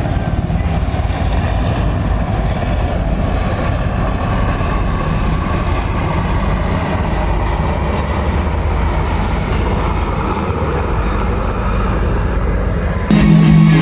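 Fixed-wing aircraft engine noise: a loud, steady rumble and roar of an airplane in flight, which cuts off suddenly near the end as music comes in.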